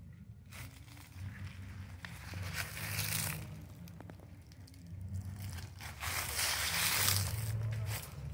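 Rustling noise that swells twice, most loudly near the end, over a low steady hum.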